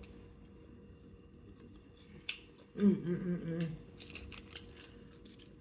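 Small plastic takeout containers being handled on the table: one sharp click about two seconds in, then a run of quick light clicks and crinkles near the end as a plastic sauce cup is picked up.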